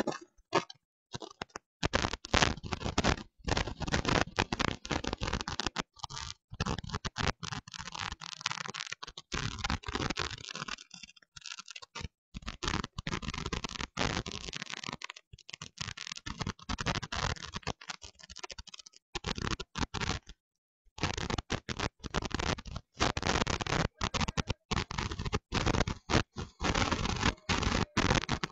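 Harsh crackling static across the whole range, cutting out to silence again and again at irregular moments, with a longer dropout about twenty seconds in: a badly degraded recording of the stream's sound.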